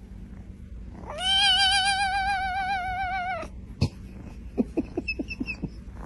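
A cat gives one long, wavering meow of about two and a half seconds, its pitch wobbling steadily. A sharp click and a few soft knocks follow.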